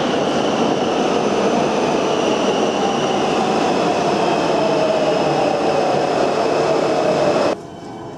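Warsaw Metro train pulling into the station: a loud rumble of wheels with high steady tones and a whine slowly falling in pitch as it slows. Near the end it drops suddenly to a quieter rumble.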